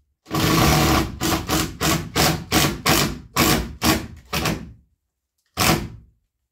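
Cordless drill driving a screw into a wooden board: one run of about a second, then a string of about ten short bursts at roughly three a second, and one last short burst near the end.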